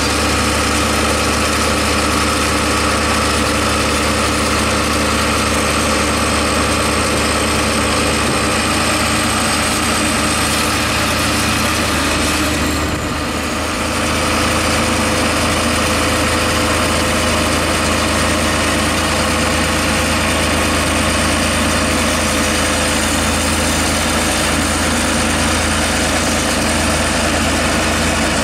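Diesel engine of a John Deere 7530 tractor, a six-cylinder, running steadily while the tractor sits stuck deep in mud with a plough behind it, with a short drop in level about halfway through.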